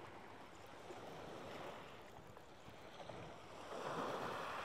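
Small waves breaking and washing over a shingle beach on a calm sea, with one wave swelling louder about four seconds in.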